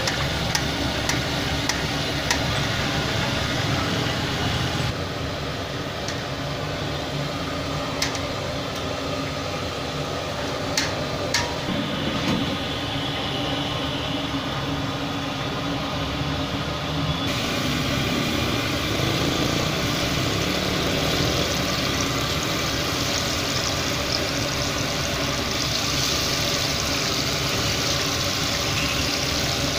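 Hot oil sizzling in a large street-food kadai of deep-frying chicken, over a steady machine-like hum. There are a few sharp clicks in the first half, and the hiss grows brighter in the last few seconds.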